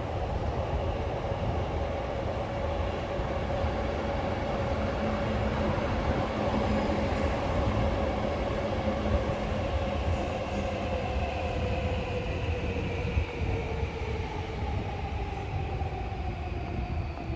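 Electric train running past, a steady rumble of wheels on rails with a motor whine that slowly falls in pitch over the second half.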